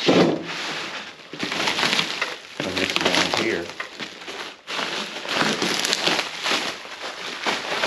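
Plastic bubble wrap and sheeting crinkling and rustling as it is pulled off a steel work-platform frame and bunched up by hand, uneven and stop-start.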